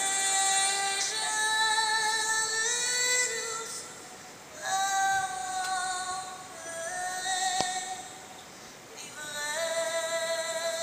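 A woman singing long held notes over musical accompaniment, in several phrases that step from pitch to pitch, heard through a television's speaker.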